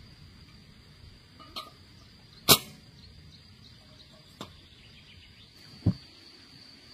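Four sharp knocks, irregularly spaced, the second much the loudest, over a faint steady high-pitched whine.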